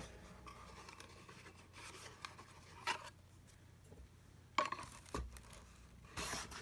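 Faint tabletop handling of ink bottles: a few light clicks and knocks, a soft low thump a little after five seconds, and a brief scrape or rustle near the end.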